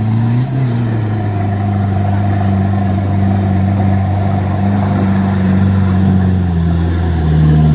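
Off-road 4x4 SUV engine pulling hard under load as it climbs through deep mud, its revs rising just after the start, held high, then easing off near the end.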